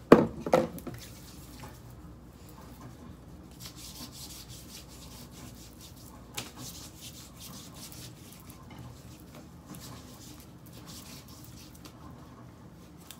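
Hands rubbing lotion in: soft, dry swishing of palms over skin, coming and going in several stretches. Two short, louder bumps come at the very start.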